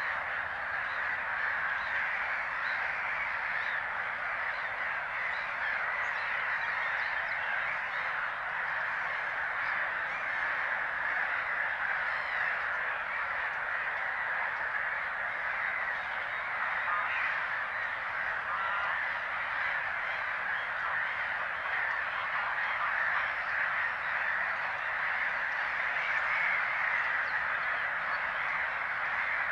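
A breeding colony of Mediterranean gulls and black-headed gulls calling in a dense, unbroken chorus of overlapping cries, with the Mediterranean gulls' display calls among them.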